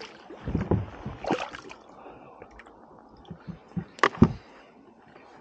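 A small hooked fish splashing and thrashing at the water's surface beside a kayak as it is lifted aboard, then two sharp knocks against the kayak about four seconds in.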